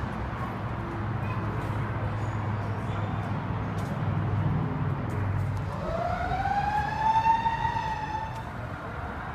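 Steady low hum and background noise. About six seconds in, a single siren wail rises, holds for about two seconds, then sags and fades away.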